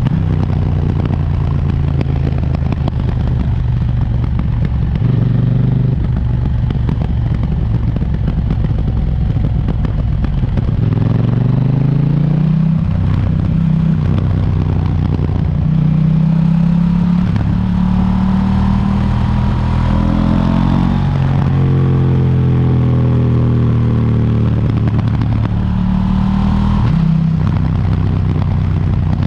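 KTM 790 Duke's parallel-twin engine on its stock exhaust, under way. It holds fairly steady revs, then the pitch climbs under acceleration about a third of the way in and again past the middle, dropping back at each gear change.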